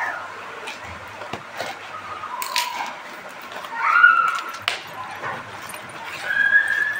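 A long cardboard parcel being cut and torn open by hand: clicks and crackles of scissors, cardboard and packing tape, with a couple of short rips. Several short high squeaks sound over it, the loudest about four seconds in.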